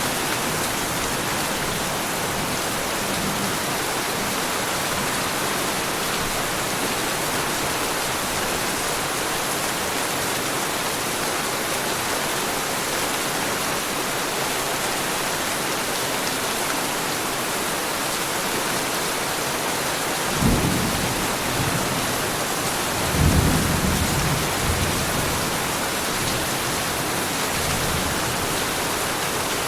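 Heavy rain falling in a steady, even hiss. Two low thunder rumbles come about two-thirds of the way through, the second longer than the first.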